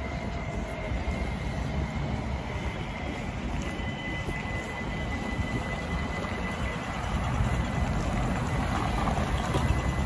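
Stockholm city tram running along the street amid traffic: a steady low rumble with a thin, high steady whine through the second half, growing a little louder near the end.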